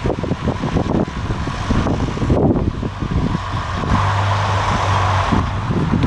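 Gusty wind buffeting the microphone in uneven rumbling bursts. A steady low hum joins in for about a second and a half past the middle.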